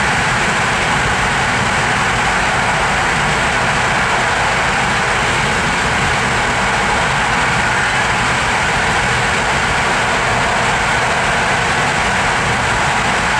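Steady, even running noise of a PKP Intercity passenger train at speed, heard inside the carriage: wheels rolling on the rails with no distinct rail-joint clicks.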